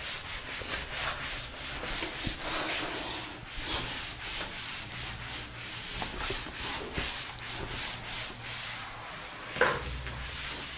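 Pen strokes scratching on a board as a structure is written out: a run of short rubbing scrapes, a few each second, with one louder stroke near the end.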